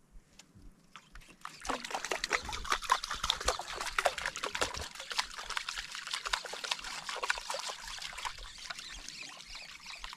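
Hooked fish thrashing and splashing at the sea surface as the line is hauled up. The splashing is a quick, irregular run of splashes that starts about a second and a half in and keeps on.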